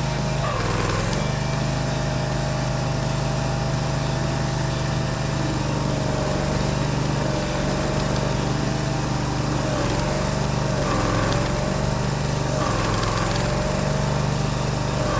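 Barreto E30SGB tracked stump grinder running steadily at working speed while grinding a pine stump, the engine pitch sagging briefly now and then as the cutter wheel takes load.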